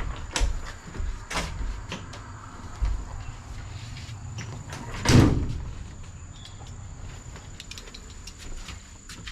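Scattered knocks and clicks of handling work, with one loud thump about five seconds in.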